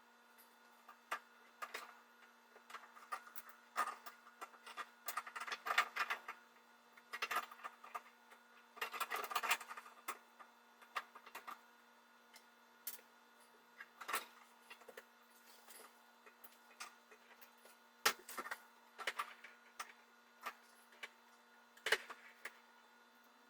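Irregular clicks, taps and short rustles of tools and faucet parts being handled during a faucet install, denser for a few seconds around a quarter of the way in and again near the end, over a faint steady hum.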